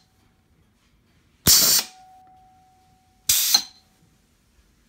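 Homemade pneumatic press firing twice, about 1.5 and 3.3 seconds in: each stroke of the air cylinder comes with a sharp blast of compressed air from its valve, about a third of a second long. A faint steady whistle hangs on for about a second and a half after the first blast.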